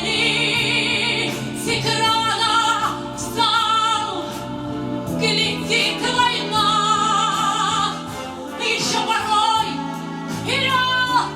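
A woman singing a song in full voice, with held, wavering vibrato notes over instrumental accompaniment.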